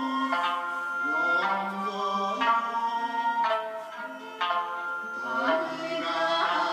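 Okinawan folk song (minyo) music led by a plucked sanshin, its notes struck about once a second with held tones between.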